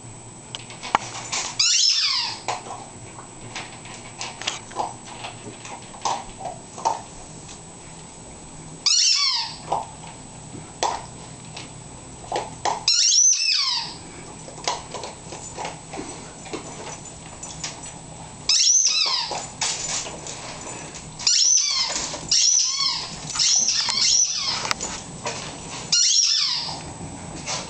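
A squeaky toy ball squeezed in a boxer dog's mouth, giving about nine short, high squeaks that each fall in pitch. They come at irregular intervals, with a quick run of four near the end and light clicks between.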